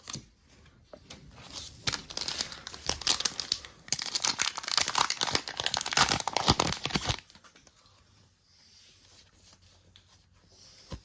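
Foil wrapper of a Naruto Kayou trading-card pack being torn open and crinkled, a dense crackling rustle lasting about five seconds that stops abruptly.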